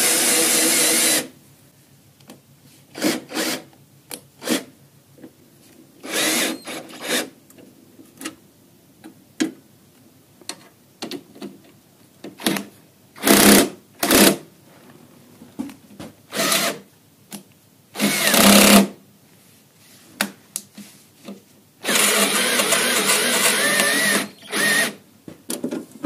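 Cordless drill with a socket turning the track tensioner bolt on a Buran snowmobile's suspension to tension the track. It runs for about a second at first, then in short bursts with pauses, and for a few seconds near the end.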